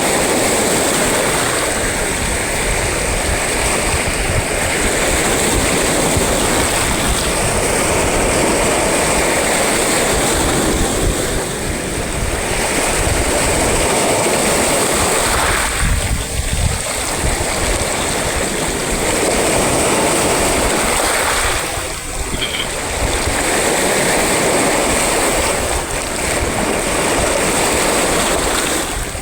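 Sea waves breaking and washing up the shore, a steady dense rush of surf that eases briefly about 16 and 22 seconds in.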